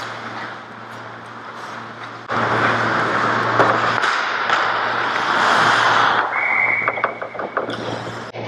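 Ice hockey play in a rink. A loud wash of noise starts suddenly about two seconds in, a short, steady high tone follows near six seconds, and then comes a run of sharp clacks.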